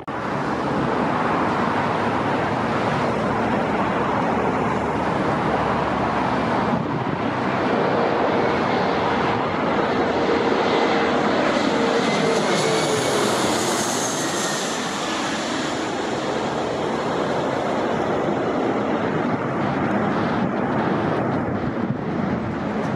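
Jet airliner on final approach passing low overhead, its engines running with a steady jet noise. A whining tone in it drops in pitch about halfway through as the plane passes.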